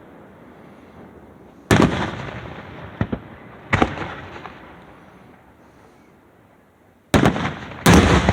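Aerial fireworks shells bursting: loud bangs about two seconds in, again near four seconds, and two close together near the end, with a couple of smaller pops between. Each bang trails off in a rolling echo.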